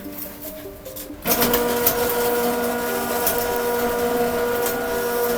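A motor-driven machine starts abruptly about a second in and runs steadily with a constant hum and whine.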